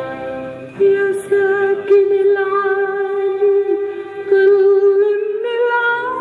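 Music playing: a voice sings a slow melody of long, wavering held notes over sustained chords.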